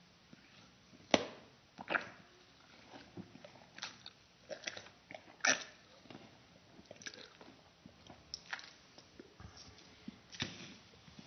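A boy chewing and crunching lollies: a string of irregular crunches and clicks, the sharpest about a second in and again about five and a half seconds in.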